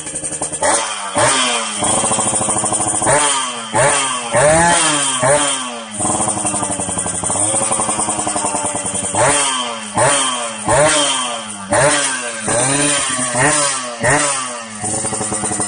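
Yamaha RX King 135's single-cylinder two-stroke engine revved repeatedly while standing still: quick throttle blips that rise sharply and fall back, in two runs with a steadier stretch between, settling back to idle near the end.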